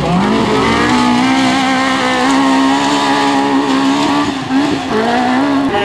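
Autocross buggy engine accelerating hard. It revs up over the first second or so and holds high revs. About four and a half seconds in there is a brief lift off the throttle, then it picks up again near the end.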